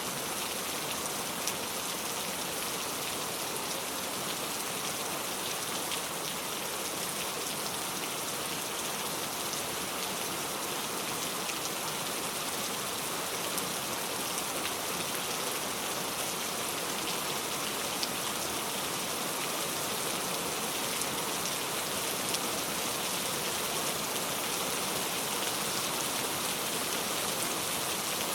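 Heavy rain falling on a road: a steady, even hiss with faint ticks of individual drops, and no thunder.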